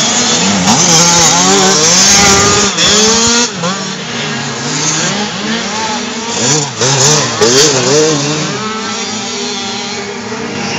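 Several dirt bikes running hard through a corner, one after another. The engine pitch keeps rising and falling as the riders roll off and open the throttle again, with the loudest passes in the first few seconds and again around seven seconds in.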